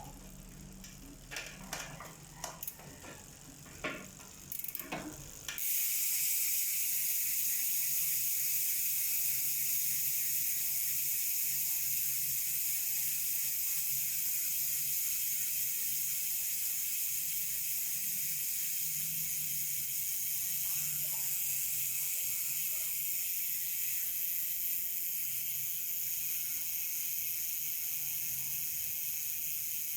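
LDCNC six-pawl bicycle rear hub freewheeling. A few separate pawl clicks come first, then from about five seconds in there is a steady high-pitched ratcheting buzz as the wheel coasts freely, easing off only slightly toward the end.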